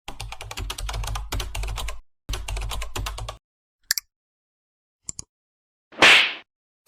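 Computer keyboard typing sound effect, rapid key clicks in two runs with a short break between. Then two quick double clicks, and about six seconds in a short, loud whoosh.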